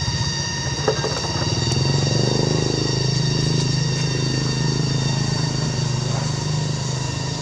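A steady low engine hum, with several steady high-pitched tones above it.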